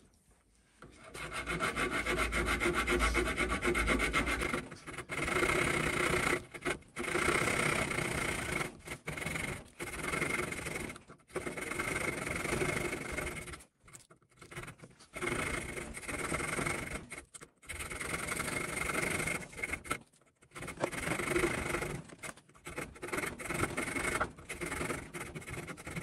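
Small fold-out saw blade of an orange Mikov Praktik pocket knife rasping back and forth through a round wooden stick held in a vise. The strokes come in runs of one to three seconds with short pauses between them. The blade is one the owner found dull and slow-cutting.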